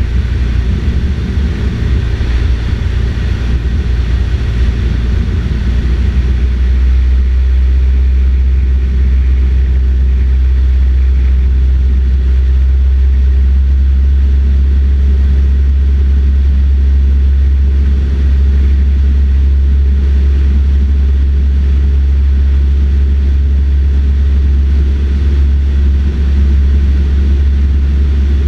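Cessna 152's four-cylinder Lycoming O-235 engine and propeller in flight, heard inside the cabin as a loud, steady low drone. The tone shifts slightly about six seconds in.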